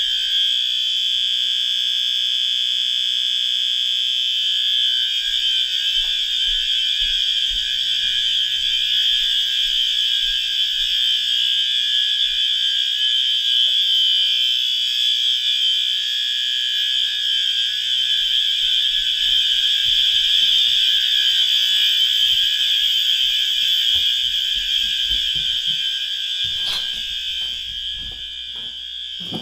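System Sensor SpectrAlert Advance fire alarm horn on 12 V DC, sounding a loud, steady, unbroken high-pitched tone on its continuous, high-volume setting. The tone eases off somewhat over the last few seconds, with a brief knock shortly before the end.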